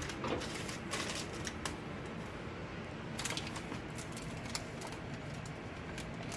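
Salt being sprinkled onto potatoes in a pan: scattered light clicks and rustles at irregular intervals, over a faint steady low hum.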